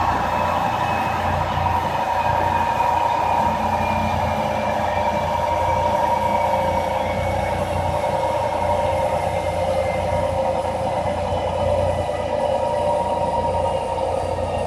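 Car tyres and Mustang chassis dynamometer rollers spinning down as the car coasts in neutral with the clutch held in, during a parasitic-loss coast-down test. A steady rolling hum and whine that slowly falls in pitch as the speed drops.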